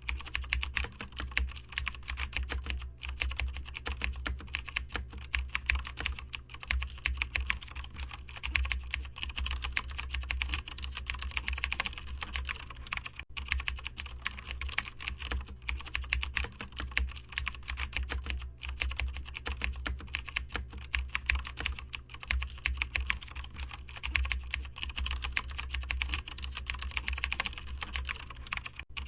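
Continuous fast typing on a computer keyboard: a dense, steady stream of key clicks with a few very brief breaks, over a steady low hum.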